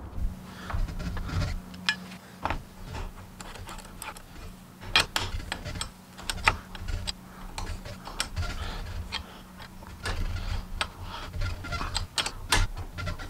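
Irregular metal clicks and knocks of parts being handled and fitted at a bicycle's bottom bracket, as a pedal-assist sensor and the crank arm go on. A low steady hum runs underneath, stopping a couple of seconds before the end.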